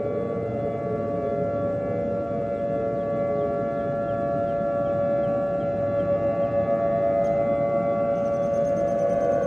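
Civil defense siren sounding, holding one steady pitch with a row of overtones above a constant noisy hiss; near the very end the pitch starts to wind down.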